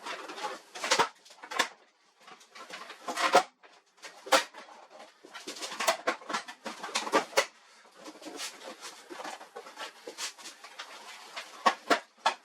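Irregular clicks and knocks at uneven intervals, with rustling between them.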